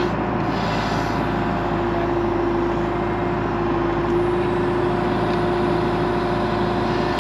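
John Deere 310 backhoe's diesel engine running steadily, with a steady whine held over it.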